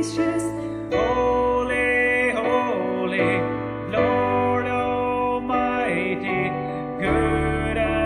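A slow worship song playing: a voice sings a held melody over soft instrumental accompaniment, with new chords coming in about every three seconds.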